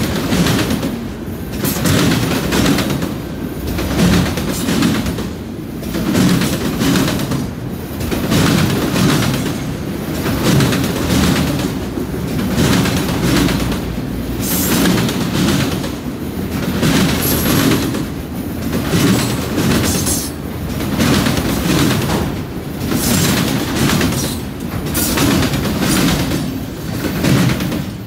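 Autorack freight cars rolling past close by: a steady rumble of steel wheels on rail with a rhythmic clickety-clack that swells about every one and a half seconds as each set of wheels goes by.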